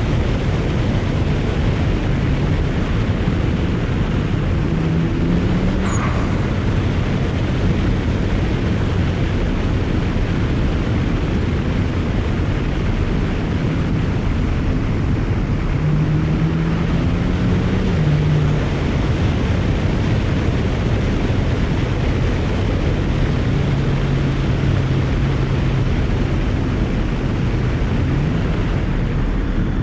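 A BMW 335i's tuned N54 twin-turbo inline-six, fitted with aftermarket downpipes, running steadily on the road under a constant bed of road and wind noise. The engine note shifts in pitch several times as the speed and gearing change, and a brief high-pitched sound comes through about six seconds in.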